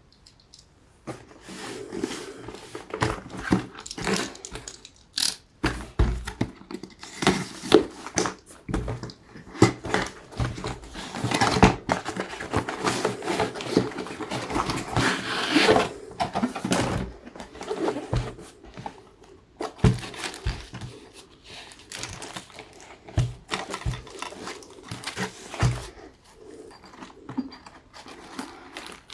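Packaging of a boxed soldering set being handled and opened by hand: irregular rustling and rubbing with scattered knocks and clicks.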